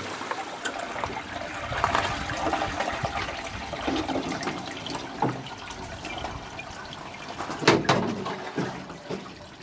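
Water rushing and splashing through a Neffco bowl gold centrifuge during a test run, with scattered small knocks and one sharper clatter about eight seconds in. The water sound thins out near the end.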